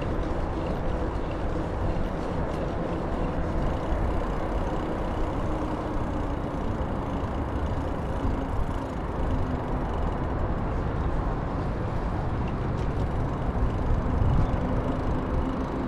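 Steady low rumble of wind on the microphone and road noise from a moving bicycle, with motor traffic going by in the street.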